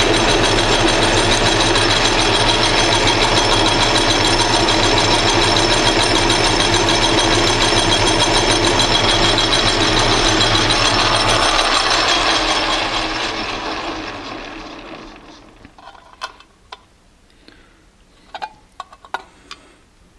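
Atlas metal lathe running steadily while taking light cuts on a small brass rod, then switched off and spinning down about twelve to fifteen seconds in. A few light clicks and taps follow as the part is handled and checked.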